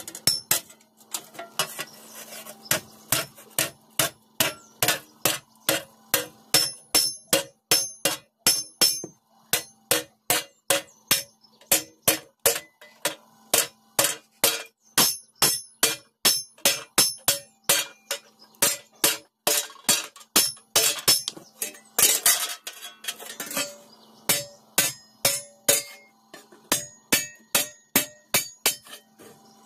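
Hand hammer beating a thin iron sheet over a wooden block to shape a food plate, about two to three blows a second, each with a short metallic ring.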